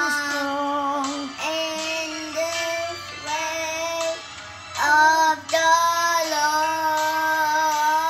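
Young boy singing a slow song into a handheld microphone, holding long notes with short breaths between phrases.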